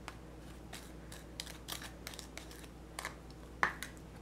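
Table knife scraping and tapping against a glass mixing bowl as egg yolk is cut into a crumbly flour-and-butter dough: scattered light clicks and scrapes, the loudest about three and a half seconds in.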